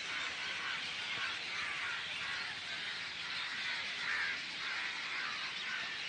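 A flock of many birds calling at once in the trees: a dense, continuous chorus of overlapping high chirps with no single call standing out.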